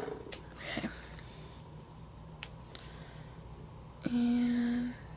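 White-out being applied over a paper planner sticker: light clicks and short scratchy swipes, then a short steady buzzing tone lasting under a second about four seconds in.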